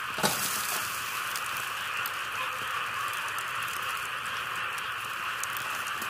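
Steady rain falling, an even hiss with scattered light patter. One short, louder knock comes about a quarter of a second in.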